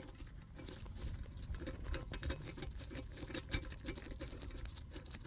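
Faint, irregular small metallic clicks and rattles of nuts and washers being worked on a threaded all-thread rod, setting up to press a brass bushing into a leaf spring eye.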